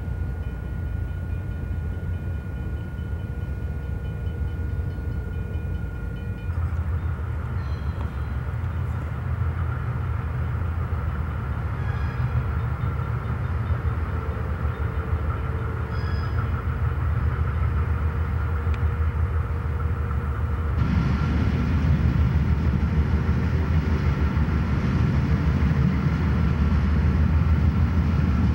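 Diesel freight locomotive engines running as a train moves through the junction, a steady low rumble. It jumps louder abruptly about six seconds in and again about two-thirds of the way through, ending loudest as a Santa Fe diesel locomotive passes close by.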